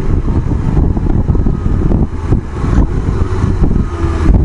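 Yamaha XJ600 Diversion's inline-four engine running under way, mixed with the low rumble of riding wind on the microphone.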